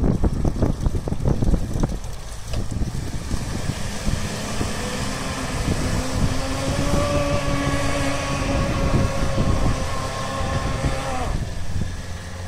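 A 4x4's engine revving hard under load as it tows a vehicle stuck in mud. The revs climb from about two seconds in, hold high for several seconds, then drop off about a second before the end. Wind buffets the microphone throughout.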